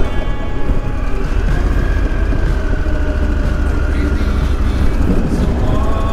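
Motorcycle running at riding speed, a steady low rumble.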